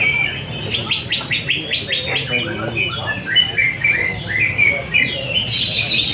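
Caged green leafbirds (cucak ijo) singing at once in a rapid stream of overlapping chirps, trills and short whistled phrases, over a steady low background rumble.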